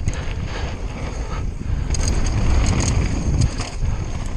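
Conway WME mountain bike riding fast down a loose dirt downhill trail: wind buffeting the action camera's microphone over the rumble of the tyres, with sharp clicks and rattles from the bike through the second half.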